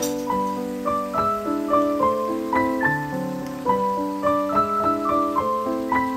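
Background solo piano music: a melody of single notes, about three a second, over held chords.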